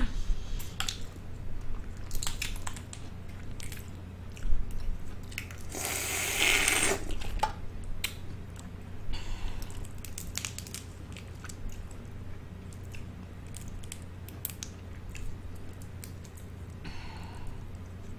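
Close-miked eating sounds: scattered mouth clicks and chewing from a person eating, with a louder, longer noisy burst about six seconds in and fainter ones later. A steady low hum sits underneath.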